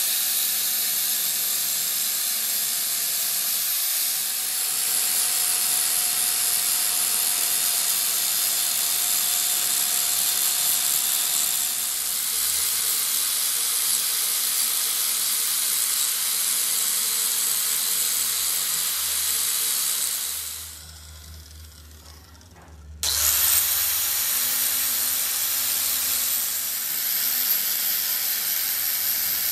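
Handheld angle grinder with an abrasive disc grinding the steel teeth of a truck differential pinion gear, to shape a broken tooth under repair: a harsh grinding hiss over a steady motor whine. The grinder cuts out about two-thirds of the way through and starts up again about two seconds later.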